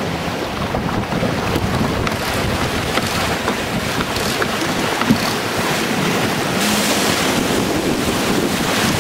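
Wind buffeting the microphone over water rushing and spray hissing along the hulls of a CATRI 24 trimaran sailing at speed. A steady, loud wash that grows a little brighter about two-thirds of the way through.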